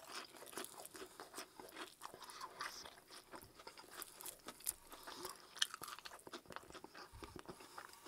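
Close-miked biting and chewing of KFC Extra Crispy fried chicken: the breading crunches in many irregular sharp crackles, with a few louder snaps midway.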